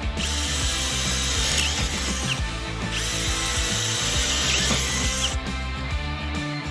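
Power drill boring through steel with a cobalt step-tip jobber bit. It runs in two spells, pausing briefly a little over two seconds in and stopping about five seconds in. Music plays underneath.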